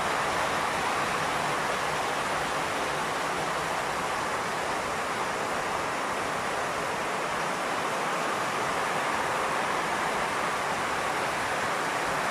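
Torrential downpour: a steady, dense hiss of heavy rain falling without a break.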